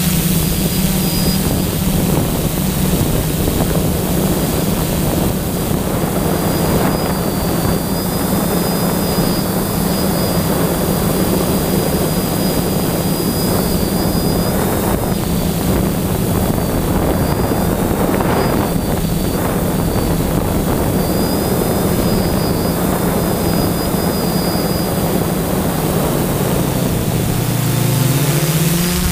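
DJI F450 quadcopter's electric motors and propellers humming steadily with a faint high whine, heard from the camera on board, with wind noise on the microphone. Near the end the hum drops in pitch and climbs back up as the throttle changes.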